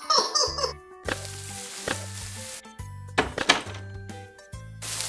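Cartoon background music with a steady bass line, over which come hissing sound effects of sand being scooped and poured and a few sharp knocks. There is a short squeaky cartoon voice at the very start.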